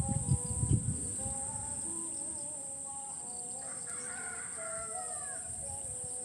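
A rooster crowing once, a call of nearly two seconds that rises and then falls away, over a steady high hum of insects. A few low thumps come near the start.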